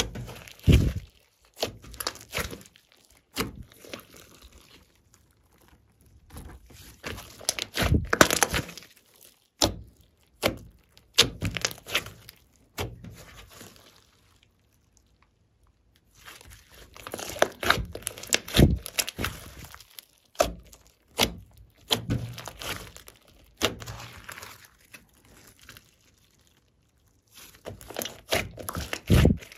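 Glossy slime being pressed, poked, stretched and squeezed by hand: clusters of sticky crackles and pops as trapped air bursts, with a couple of short quiet pauses.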